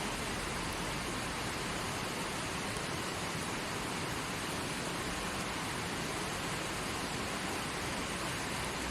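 A river rushing over rocks and stones: a steady, even wash of flowing water.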